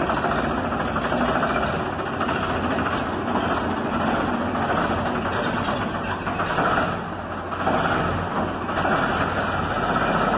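Ford 3600 tractor's three-cylinder diesel engine running steadily at low speed while the tractor is driven slowly, with a short dip in level about seven seconds in.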